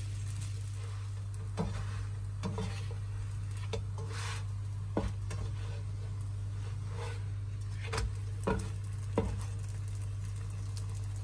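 Layered flatbread frying in a nonstick pan with a faint sizzle, while a plastic spatula knocks and scrapes against the pan several times as the bread is turned, most of it in the last few seconds. A steady low hum runs underneath.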